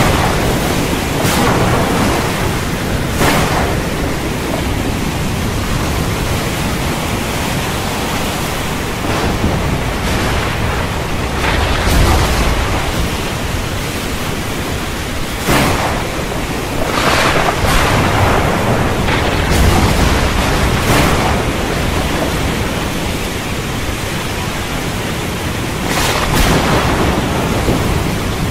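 Heavy rain falling in a steady, dense rush, broken by several short cracks of thunder, with a low rumble swelling about twelve and twenty seconds in.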